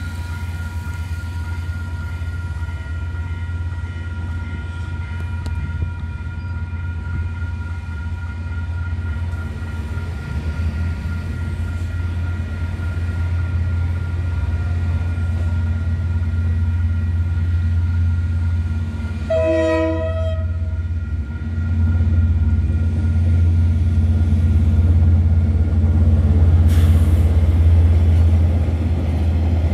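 KiwiRail diesel locomotive hauling a log train into a level crossing, its low engine rumble growing steadily louder while the crossing bells ring. About two-thirds of the way in the horn gives one short blast. Near the end the locomotive passes, the loudest part, with a single sharp knock.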